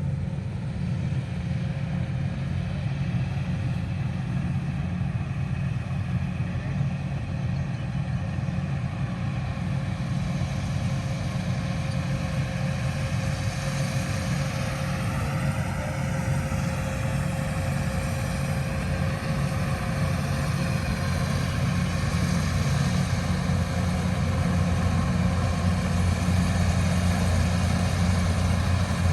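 An engine running steadily at a constant speed, getting a little louder over the last few seconds.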